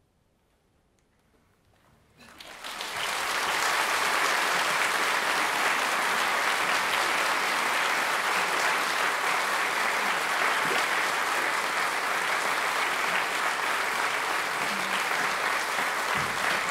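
A couple of seconds of near silence, then audience applause breaks out about two seconds in, swells within a second and holds steady.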